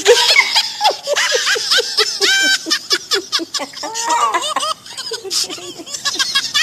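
Laughter in quick, repeated bursts, several a second, thinning out after about four seconds.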